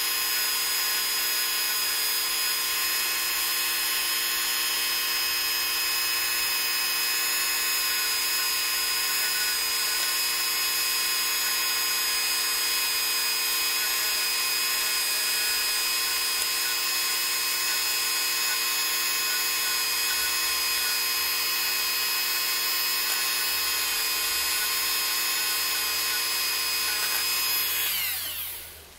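Dremel rotary tool with a small polishing wheel, running with a steady whine while it polishes varnish friction marks off a chrome-plated steel presser bar. Near the end it is switched off, and the whine falls in pitch as it spins down.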